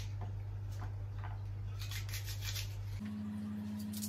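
A knife slicing through an onion, a few short scraping cuts, over a steady low electrical hum that shifts to a higher pitch about three seconds in.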